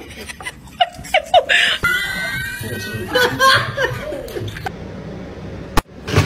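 People laughing in short, repeated chuckles, with a few sharp clicks among them.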